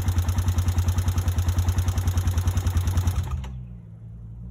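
Freshly rebuilt Honda TRX400 ATV's single-cylinder engine running at a fast, evenly pulsing high idle, held up because the throttle is set too tight. A little after three seconds in the engine sound drops off sharply, and a quieter steady low hum remains.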